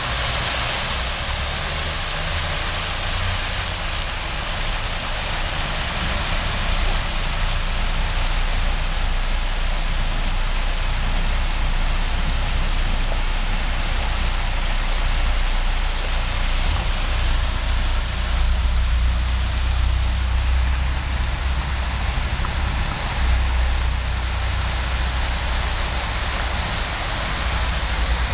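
Heavy rain pouring down onto a street and its roofs, a steady, even hiss, with a low rumble underneath that swells for a few seconds past the middle.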